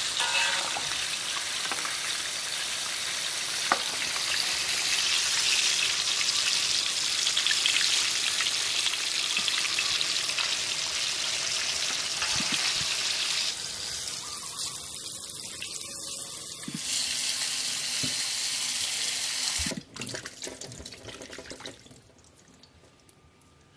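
Whole sugar apples deep-frying in a wok of hot oil: a steady, dense sizzle of bubbling oil. The sizzle stops abruptly about 20 seconds in, leaving a few knocks and faint splashing of water.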